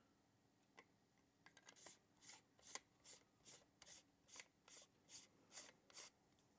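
Faint rhythmic rasping, about two and a half strokes a second starting about two seconds in, as the mesh grille of a Lewitt DTP 640 REX kick drum microphone is twisted by hand back onto its threaded body.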